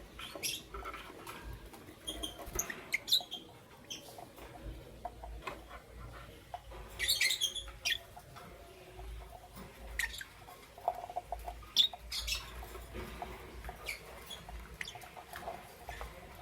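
Lovebirds chirping: short, high squeaky chirps at irregular intervals, with a quick run of them about seven seconds in.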